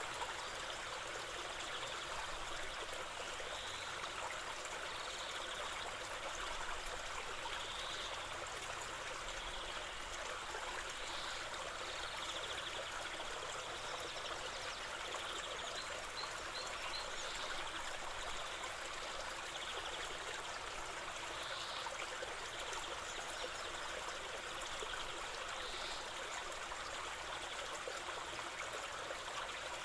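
River water flowing steadily, a constant rushing babble, with brief high bird chirps every few seconds.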